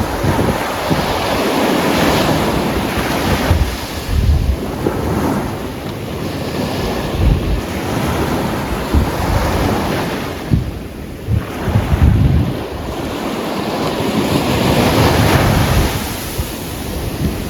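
Atlantic waves breaking and washing up a black volcanic sand and pebble beach, the surf swelling and fading every few seconds. Wind buffets the microphone in low rumbling gusts.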